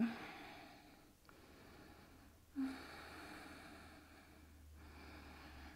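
A woman breathing slowly and audibly, about four long breaths in a row, with a brief voiced sound about halfway through.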